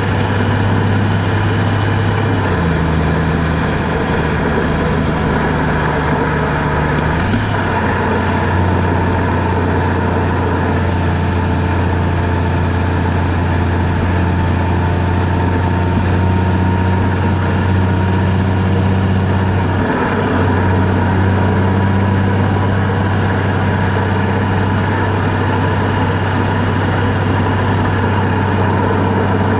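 A car driving along a road: steady engine and road noise. The low engine note shifts to a new pitch about two seconds in, again at about seven seconds, and once more around twenty seconds.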